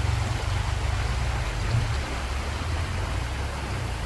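Steady rushing outdoor noise: a heavy, fluttering low rumble under an even hiss.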